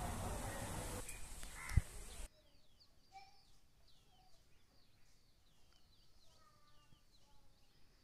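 A loud rushing noise on the phone microphone with a sharp knock, cut off abruptly about two seconds in. Then many faint birds chirping, short rising and falling calls repeated over and over, with a few lower calls among them.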